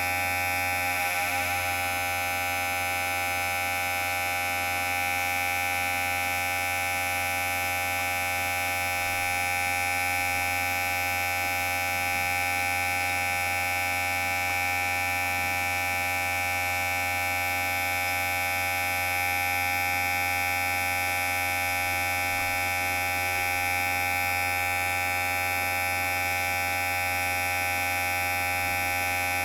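Electric hair clipper buzzing steadily, a constant hum with a high, even drone.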